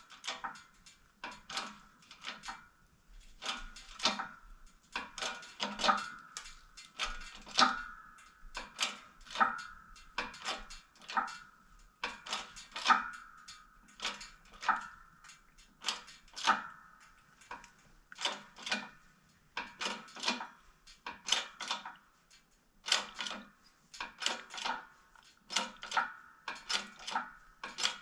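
Pressing tools working a toe-link pillowball bushing out of its arm: a long, irregular series of sharp metal clicks, about one or two a second, each ringing briefly.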